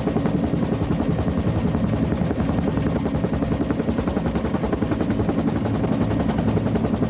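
Helicopter running, its rotor beating in a rapid, even pulse over a steady low hum; the sound cuts off abruptly at the end.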